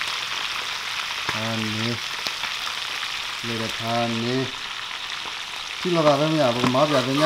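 Whole fish shallow-frying in hot oil in a pan: a steady sizzle. A man's voice breaks in briefly three times, loudest near the end.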